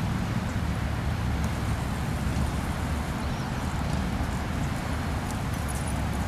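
Steady low outdoor rumble of wind and road traffic.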